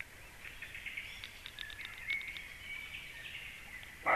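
Small forest songbirds chirping, a quick run of short high notes with a brief held whistle about halfway through. Right at the end a deer's loud bark breaks in.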